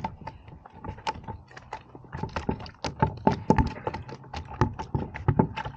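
A landed fish thrashing in the landing net against the kayak: a rapid, irregular run of taps and knocks.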